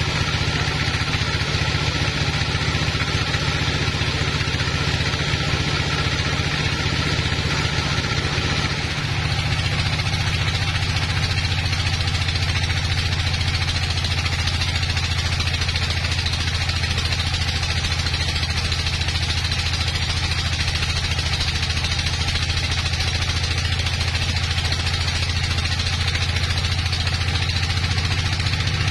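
Band sawmill running steadily with its blade cutting through a large log: a constant low drive drone under a noisy whir, which shifts slightly about nine seconds in.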